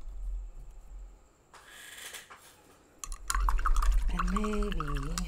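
Paintbrush being swished and rattled in a ceramic jar of rinse water, its handle clicking rapidly against the sides for the last couple of seconds. A soft swish comes about two seconds in, and a brief low hum of a voice near the end.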